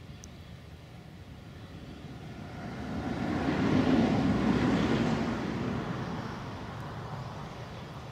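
A vehicle passing by: a noisy sound that grows louder to a peak about four seconds in, then fades away.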